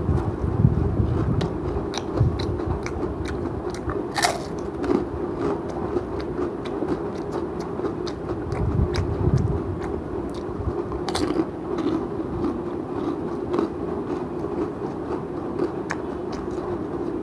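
Close-miked eating: chewing with sharp, crisp crunches of papad fry, two of them loud, about four and eleven seconds in, over a steady low hum.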